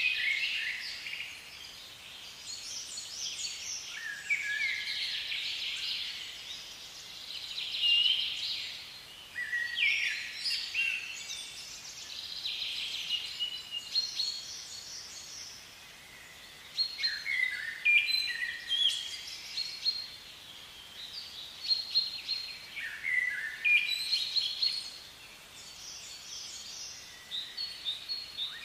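Birds singing: high chirping song phrases, several of them overlapping, repeated every few seconds.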